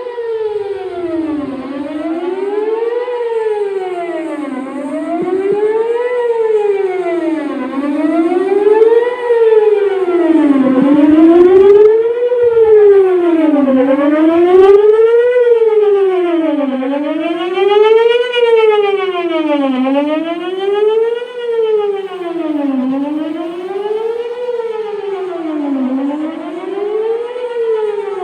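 Outdoor emergency warning siren sounding a wail during a test of the emergency warning system, its pitch sliding smoothly up and down about every three seconds. It grows louder toward the middle and then eases off.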